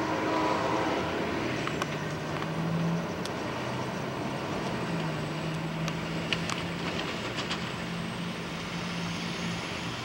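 Amtrak Coast Starlight passenger train rolling away, its horn ending within the first second, then the steady rumble of the moving train with a low engine hum and a few sharp clicks. Road vehicles pass close by in the middle of the stretch.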